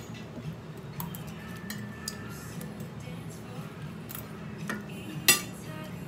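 Metal fork and spoon clinking against a plate, a few light clinks, then one loud clank near the end as the spoon is set down on the plate.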